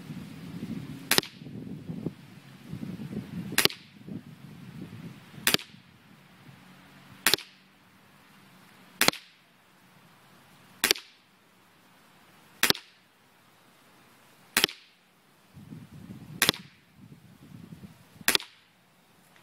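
Ten sharp shots from a CO2-powered Ruger P345 airsoft pistol, fired at a steady pace of about one every two seconds.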